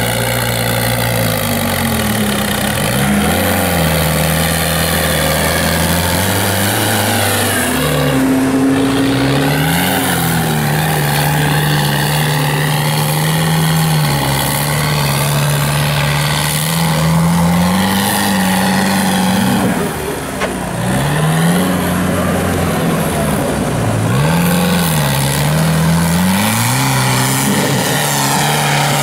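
A 4x4 off-road vehicle's engine running hard and revving up and down, its pitch rising and falling every few seconds, with a long climb to a peak about a third of the way in and sharp dips near the end.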